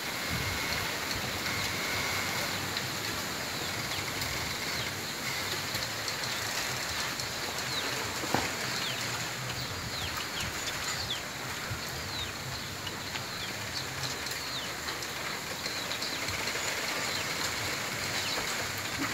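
Wind in a bamboo grove: a steady rush of leaves, with short high chirps scattered throughout and one sharp crack from the stems about eight seconds in.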